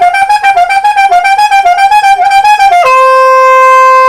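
Soprano saxophone playing pointillism: a quick string of short staccato notes, several a second. About three seconds in it switches to a single long held tone, lower in pitch.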